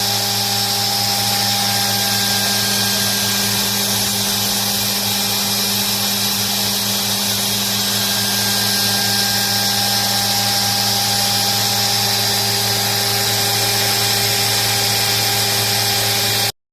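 SFY CNC motor spindle running at speed: a steady hum with a high whine over a hiss, cutting off suddenly near the end.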